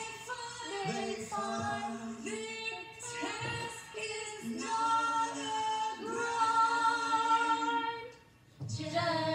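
A child singing out loud along with a song, holding long notes, with a brief break near the end.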